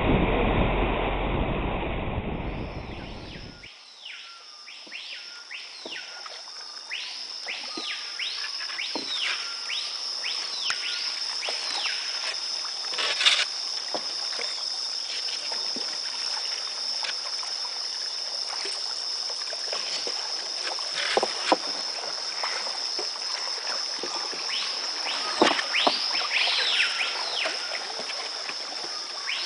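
Rainforest ambience: a steady high-pitched insect drone with many repeated descending whistled calls, and a few sharp knocks. Background music fades out in the first few seconds.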